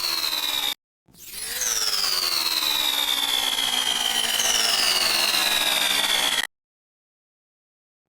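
Blender motor whining, its pitch falling steadily as it runs. It stops dead just under a second in, starts again, and stops dead again near the end before starting once more. The identical repeats mark one recorded blender clip being played back over and over as a sample.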